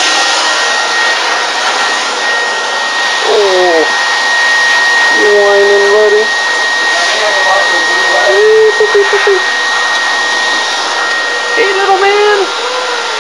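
Vacuum cleaner motor running steadily: a loud rush of air with a constant high whine, used on a Newfoundland dog's coat during grooming. A few short wavering voice sounds come through over it.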